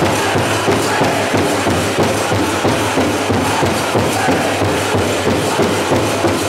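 Powwow drum group playing a chicken dance song: a big drum beaten in a steady, fast beat of about three strokes a second, with the singers' voices over it.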